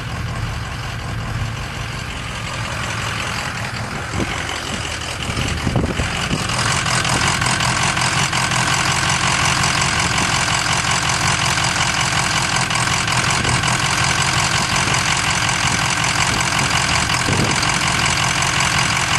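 Ford 6.0 Powerstroke V8 turbo-diesel idling roughly with a lope and a miss from a bad injector. About six seconds in it gets louder and brighter, then runs on steadily.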